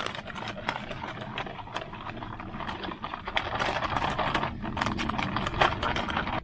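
Rapid, irregular clicking and crinkling of hands working an MRE coffee drink with a makeshift tool, getting louder toward the middle.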